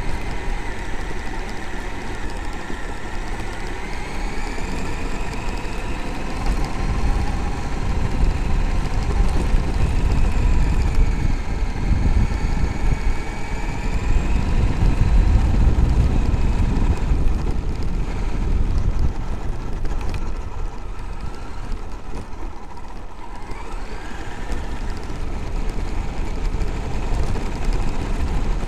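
Traxxas X-Maxx RC monster truck driving on a gravel track, heard from a camera mounted on the truck: its brushless electric motor and drivetrain whine, rising and falling in pitch with speed, over a loud rumble of tyres and vibration that is strongest in the middle stretch.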